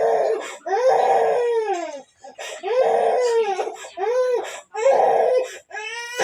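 A young child crying in a string of loud wails, each about a second long and arching up then down in pitch. The child is sick and crying while being given a traditional massage.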